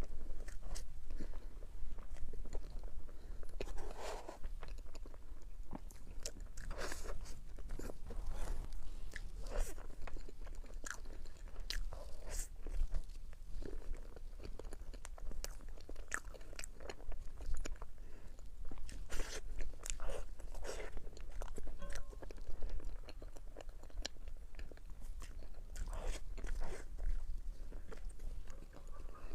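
Close-up biting and chewing of a chocolate dessert: irregular crunches and crackles as it is bitten and chewed, over a low steady hum.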